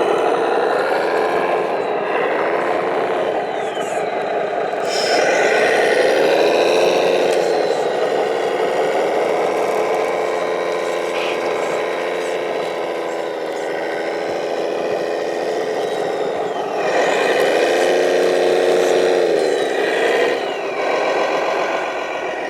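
Motors and gear drives of radio-controlled construction models running, their whine rising and falling in pitch as they work, loudest in two spells of a few seconds each.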